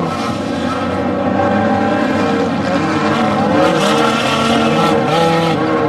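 Off-road desert race vehicle engines running hard, their pitch rising and falling as they rev and change gear.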